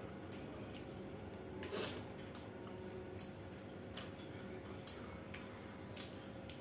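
Quiet eating sounds from people eating pork with their hands: scattered small clicks and smacks of chewing and fingers picking at food on the plates, with one louder, rougher noise a little under two seconds in. A faint steady hum runs underneath.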